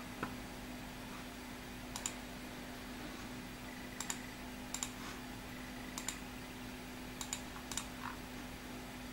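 Computer mouse button clicks, single and some in quick pairs, every second or two, over a steady low hum.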